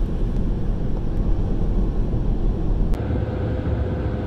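Steady road noise inside a moving car's cabin at highway speed: a low rumble of tyres and engine with a hiss above it. The sound changes abruptly about three seconds in.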